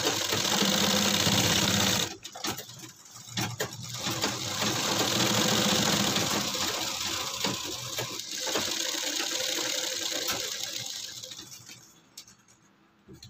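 Black straight-stitch sewing machine running in stretches, stitching a collar onto a shirt's neckline, with short stops about two seconds in and about eight seconds in. The machine slows and stops near the end.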